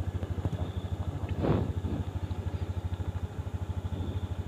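A small engine idling nearby, a steady rapid chugging of more than ten even pulses a second, with a brief louder noise about a second and a half in.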